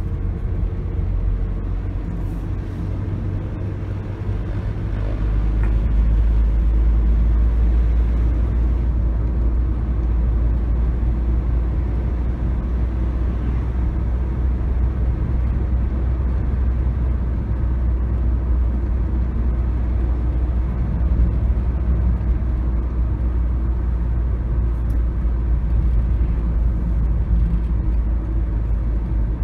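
Car cabin road noise while driving: a steady low rumble of engine and tyres, growing louder about five seconds in.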